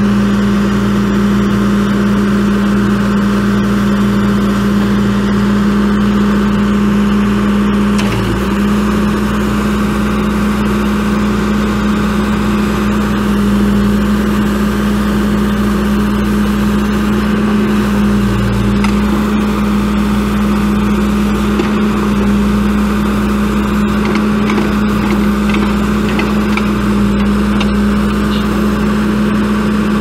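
John Deere 4045T four-cylinder turbo diesel engine of a 310SG backhoe running steadily with an even, unchanging hum.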